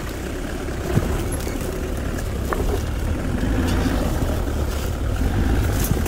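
Hyundai Galloper SUV's engine running at low revs as it crawls slowly over rocks, with a few small knocks of tyres on stone.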